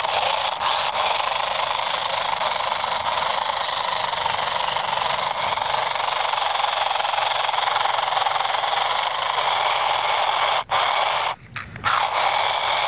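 Cheap RC car's electric motor and gears running at full throttle with a harsh, rough whine, trying to push through mud. It cuts out briefly twice near the end. The car is damaged and wet from the mud and does not sound right.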